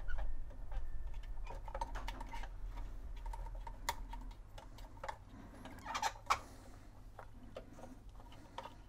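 Irregular small clicks, taps and rubbing from hands handling a rubber drive belt against the metal chassis and platter of a Sharp VZ-3000 record player while the belt is worked around the platter. There is a cluster of louder clicks about six seconds in, over a low hum that fades out about halfway.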